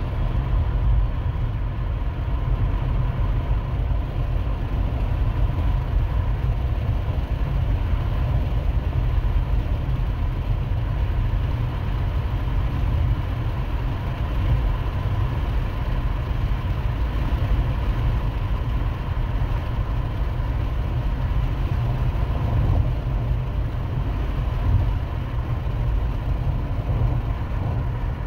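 Steady rumble of road and engine noise inside a moving car's cabin.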